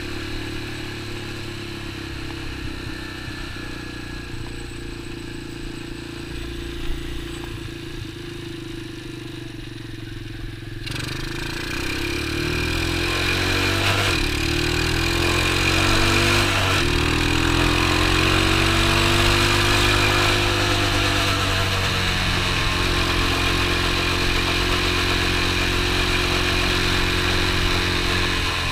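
X19 super pocket bike's small single-cylinder engine running under way. About eleven seconds in the throttle opens and it gets louder, its pitch rising and falling as the bike shifts up through the gears, then it settles into a steady drone in a higher gear.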